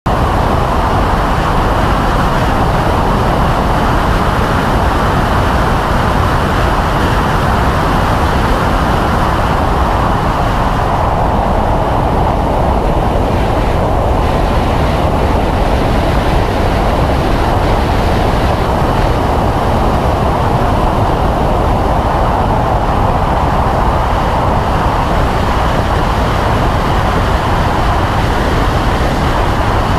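2011 BMW M3 (E92) 4.0-litre V8 with an Akrapovic Evolution exhaust running at full throttle in fourth gear, high in the revs, blended with a constant rush of wind and road noise at track speed.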